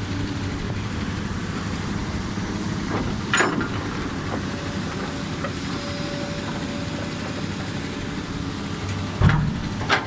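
Komatsu excavator's diesel engine running steadily, with a few brief louder noises from the machine working about three seconds in and again near the end.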